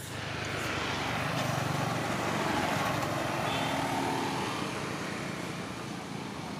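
A motor vehicle passing on the road: tyre and engine noise that swells over the first couple of seconds, peaks, then slowly fades away.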